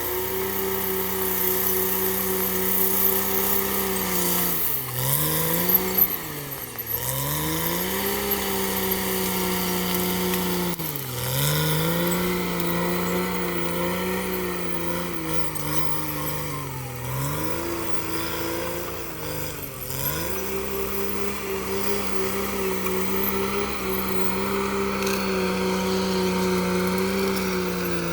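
Cat D6R XL bulldozer's diesel engine running at high speed, its pitch briefly dropping and climbing back up about five times as the engine speed dips and recovers.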